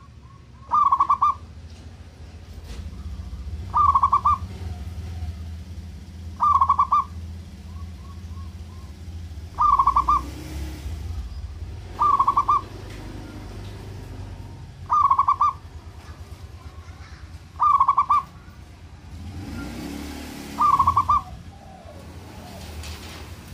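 Zebra dove (perkutut) calling: short bursts of rapid cooing notes, repeated eight times about every three seconds. A low steady rumble runs beneath.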